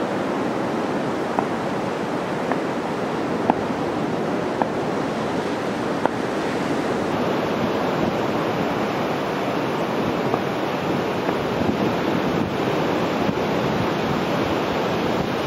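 Rough sea surf breaking and rolling in on the beach, a steady rush of noise.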